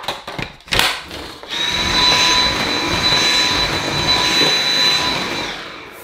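A few handling clicks and knocks, then a Dyson V7 Motorhead cordless vacuum cleaner switches on about a second and a half in and runs with a steady high whine. The motor stops a little after five seconds in and winds down.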